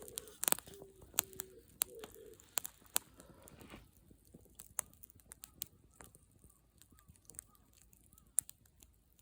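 Campfire crackling, with scattered sharp pops. Over it a dove coos in short, low, repeated notes during the first two seconds.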